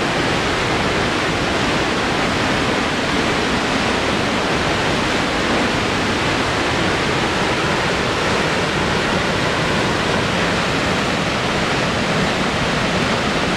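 Steady rushing of High Force waterfall, the River Tees pouring over a rock cliff into its plunge pool.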